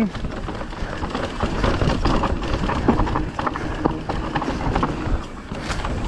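Specialized Levo electric mountain bike riding down a rough dirt trail: a rumble of tyres on dirt with irregular knocks and rattles from the bike over bumps.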